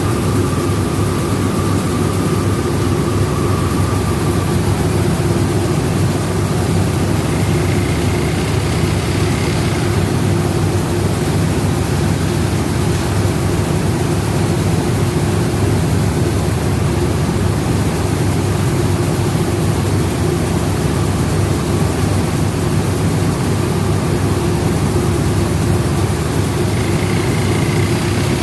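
Rice milling machinery running steadily: a loud, even mechanical noise with a low hum.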